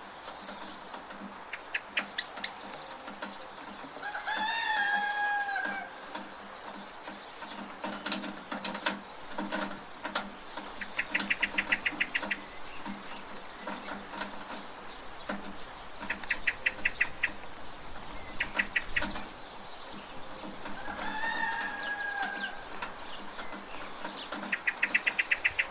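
Rural ambience with rain: a rooster crows twice, about 17 seconds apart. Between the crows come short bursts of rapid high chattering from another bird, over irregular drips and ticks of water falling from a gutter.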